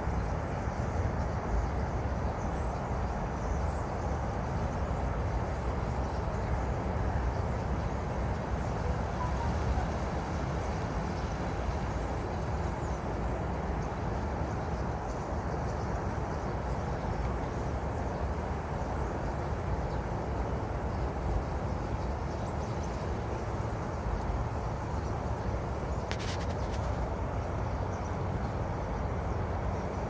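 Steady low outdoor rumble, even in level throughout, with a brief burst of faint high clicks about 26 seconds in.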